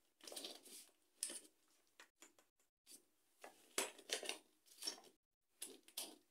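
Plastic panels and connectors of a DIY cube-storage wardrobe being handled and pushed together: irregular short scrapes and clicks.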